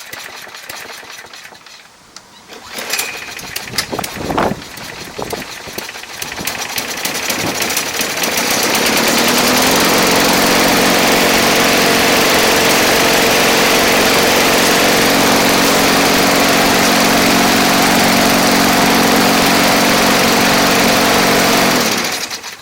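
Craftsman self-propelled lawn mower's engine being started after a new flywheel key was fitted: after a few short sounds early on it catches, builds up over a few seconds and runs steadily at speed, then cuts off near the end. It runs with little vibration, a sign that the crankshaft survived the stump strike.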